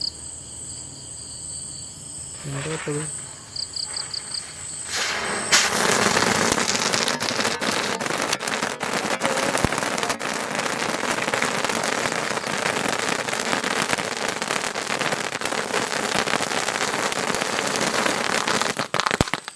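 Vanitha 'Top Gun' green firework, a sparkler-like fountain, lit and spraying sparks. It makes a loud, dense hiss with fine crackling that starts about five seconds in, runs for about thirteen seconds and cuts off near the end. Crickets chirp before it starts.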